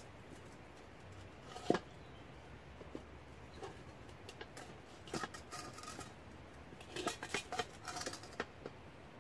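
Metal tongs clinking and scraping against a metal fire bowl as charcoal and ash are stirred: scattered light clicks, one sharper knock about two seconds in, and clusters of quicker clicks around five and seven seconds in.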